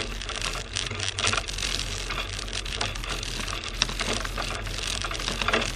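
Small 4x4 car driving over a rutted, frozen snow track: a low steady engine drone under dense, irregular clicking and rattling from the bumps.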